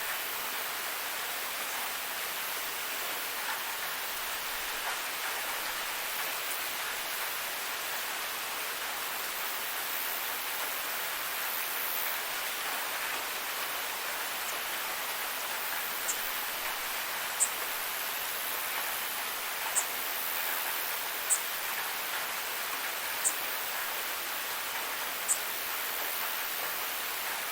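Steady rain falling, an even hiss. From a little past halfway, a bug gives short high chirps about every two seconds over the rain.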